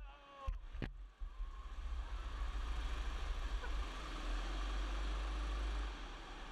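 Go-kart running around the track, heard from the driver's seat: a steady mechanical noise over a strong low rumble. Two sharp clicks come in the first second.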